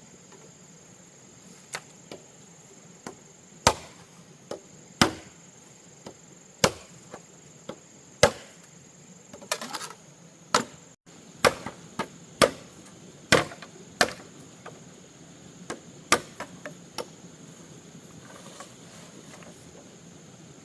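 Bamboo being chopped with a blade: a long run of sharp, irregular strokes one to two seconds apart, quickening in the middle and stopping a few seconds before the end.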